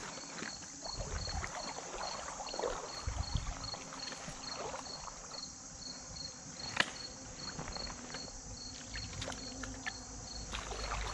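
Insects chirping in a steady high, pulsing trill, about three pulses a second, over irregular water sloshing and splashing at the stream. There is a single sharp click about seven seconds in.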